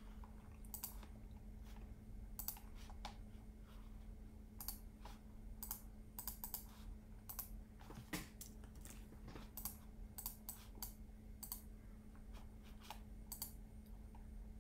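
Faint, irregular clicks of a computer keyboard and mouse being worked, over a steady low hum.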